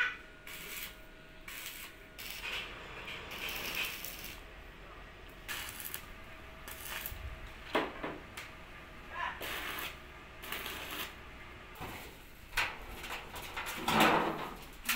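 Irregular metal clinks, knocks and scrapes from hand tools on a steel excavator hood panel lying on a steel plate, with a louder clatter near the end as the panel is lifted.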